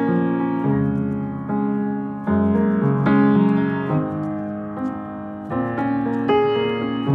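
Upright piano playing sustained chords that change about every second, in an instrumental passage of the song with no voice.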